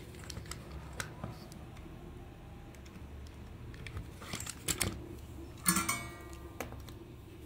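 Hard plastic toy parts clicking and clattering as they are handled and set down on a workbench: scattered light clicks, a run of taps about four and a half seconds in, and one louder rattling clatter with a brief hollow ring a little before six seconds.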